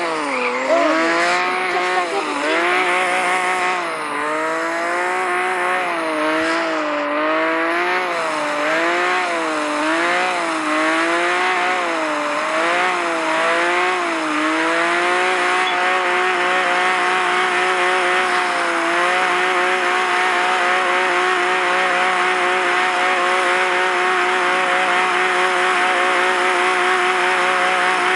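Simulated car engine in a driving video game, its pitch rising and falling over and over for about the first half, then holding at a steady pitch as the car cruises at speed.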